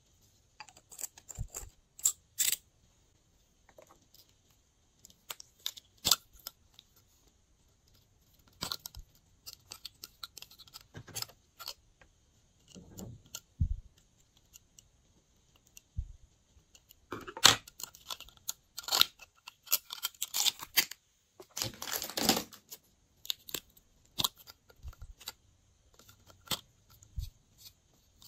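Close handling sounds of cosmetics over a glass bowl: lipstick tubes and caps clicking and small scissors snipping, in scattered short bursts with a busier stretch about two-thirds through.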